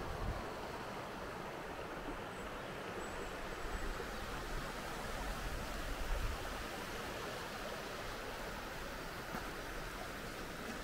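Steady rushing of a river flowing past a stone bank. Low rumbles of wind on the microphone come and go, strongest from about a third of the way in to just past halfway.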